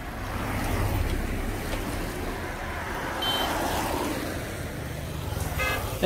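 Cars passing on a wet road, their tyre hiss and engine noise swelling about a second in and again a little after three seconds, over a steady low rumble.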